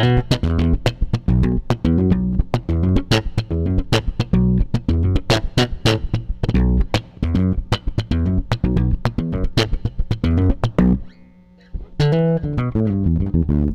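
Ibanez SR Mezzo 200 electric bass played through its rear (bridge) pickup alone, a fast run of sharp, percussive slapped and plucked notes with a bright attack on each, pausing briefly about eleven seconds in before a few more notes.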